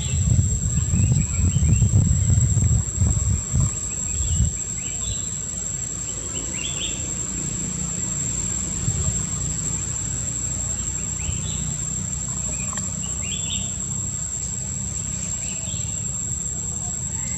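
A steady high-pitched insect drone, with scattered short high chirps. A low rumble is heavy during the first four seconds and then settles into a steadier low hum.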